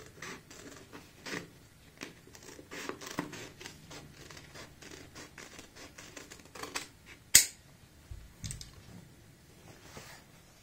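Tailor's scissors snipping through stiff, folded buckram in a long run of short cuts, with one sharp, louder click about seven seconds in and a few softer handling noises after it.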